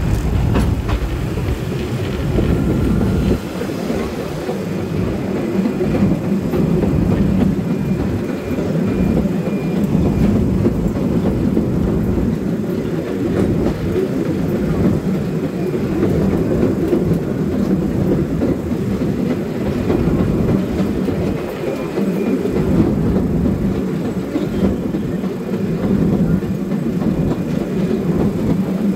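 Historic Santa Teresa electric tram running along its track, heard on board: a steady rumble and rattle of the wheels on the rails and of the car body. A faint high squeal comes twice.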